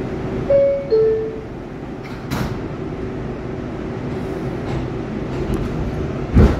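R142A subway car's two-note descending door chime, then a thump about two seconds in as the sliding doors shut, over the car's steady rumble. Another heavier thump comes near the end.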